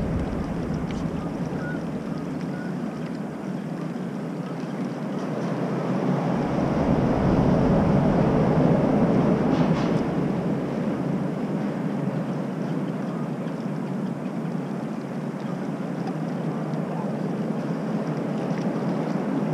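Steady rushing of wind and river water around an anchored boat, swelling a little near the middle.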